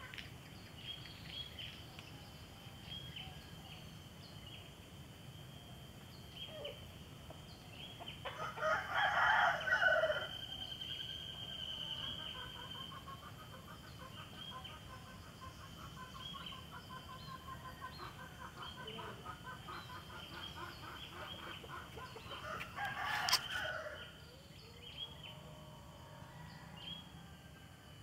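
A rooster crowing twice, about eight seconds in and again about twenty-three seconds in, over steady high-pitched chirping in the background.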